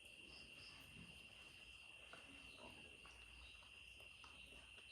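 Near silence with a faint, steady, high-pitched cricket trill.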